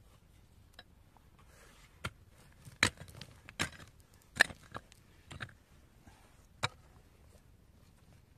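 A hand tool knocking and scraping in stony soil inside a planting pit: about seven short, sharp strikes, irregularly spaced, starting about two seconds in.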